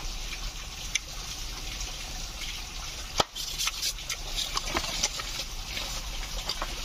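Steady rush of flowing water, with one sharp click about three seconds in and a scatter of lighter ticks and taps after it.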